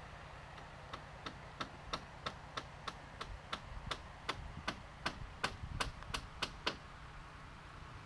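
A rapid series of about eighteen sharp knocks or chopping strikes, about three a second, growing louder and then stopping about a second before the end.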